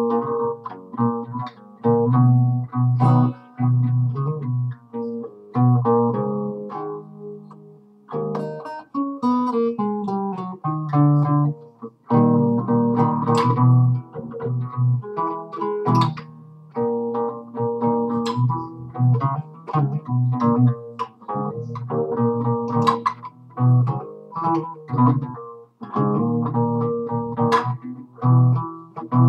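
Nylon-string classical guitar played solo, improvising with strummed chords and plucked notes. About a third of the way in, a run of single notes falls in pitch.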